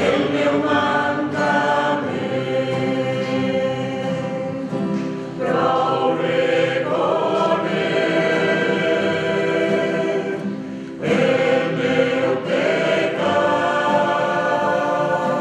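Parish choir of mixed men's and women's voices singing a liturgical hymn, in held phrases with two short breaks between them.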